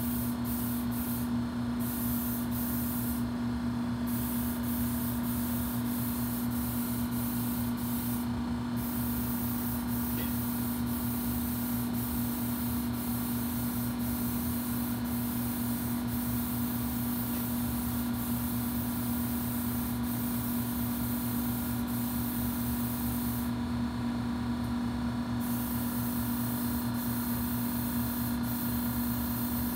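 Electrostatic paint spray gun hissing steadily over a constant low hum. The high part of the hiss drops out briefly several times, for about two seconds near the end.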